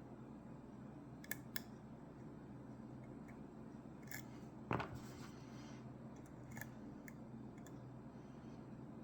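Faint clicks and light scraping of a lock pick and tension wrench working the pins of a Ruko 600 pin-tumbler lock, a few separate clicks with one louder click about halfway through.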